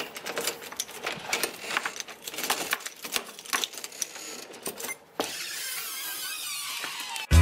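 A bunch of keys jingling on a ring and clicking against a door-knob lock as it is unlocked, for about five seconds. A steady rushing noise follows, and music starts at the very end.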